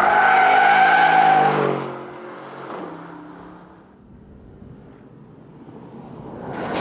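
Aston Martin DBX engine going past: loud at first, then dropping in pitch and fading away as the car passes. After a few quieter seconds the engine is heard again, approaching and growing louder near the end.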